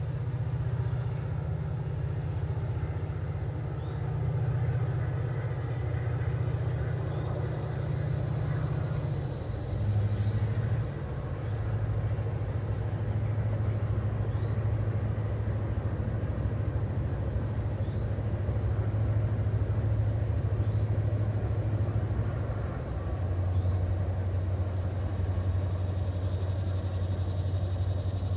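Diesel locomotives of a freight train running with a low, steady engine drone that steps down in pitch twice, about a third of the way in and again near the end. A steady high buzz sits above it.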